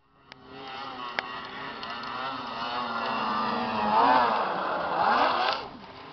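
Snowmobile engine running at high revs, growing louder as it approaches. Its pitch swings up and down about four seconds in as it goes off a snow jump, then it drops away sharply near the end.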